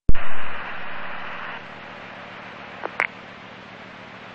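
Police scanner radio opening a transmission with no voice: a click, a burst of static hiss for about a second and a half, then a low steady hiss with two short chirps about three seconds in.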